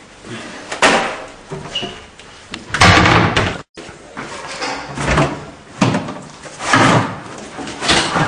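Kitchen cupboard doors and a fridge door being opened and banged shut: a run of sharp knocks and slams about a second apart, some with a short clatter after them.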